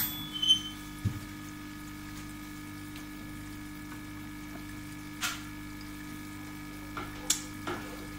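Aquarium pump and filter humming steadily, with water moving at the surface. A few brief splashy noises come about five seconds in and again near the end.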